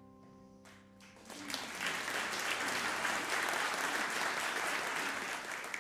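The last held chord of the song fades out, and about a second in an audience starts applauding, a dense clapping that holds steady for several seconds.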